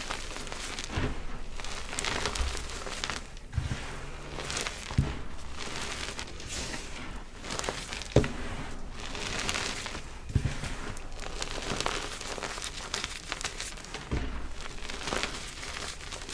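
Gym chalk being crushed and crumbled, a steady crisp crunching and crackling with sharper cracks about 5 and 8 seconds in. The chalk mix is very crispy.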